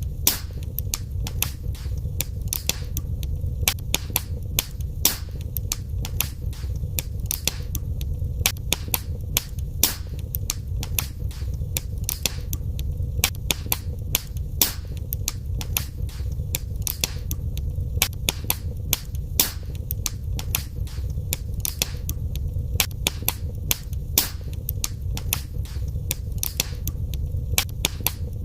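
Wood fire in a fireplace crackling and popping: many sharp irregular pops and snaps over a steady low rumble of the burning flames.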